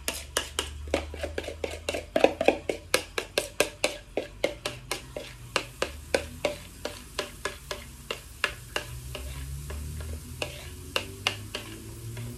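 A metal spoon scraping pancake batter out of a ceramic mixing bowl in quick strokes, clicking against the bowl several times a second and thinning out near the end. Faint sizzling as the batter lands in the hot frying pan.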